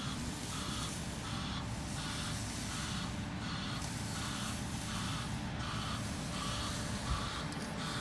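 Vehicle reversing alarm pulsing with a hissing beep about one and a half times a second, over the low rumble of a truck engine running.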